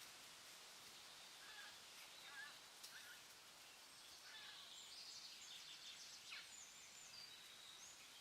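Faint forest ambience: a steady background hiss with scattered short bird calls, a few brief low chirps in the first half and higher, busier calls and trills in the second half.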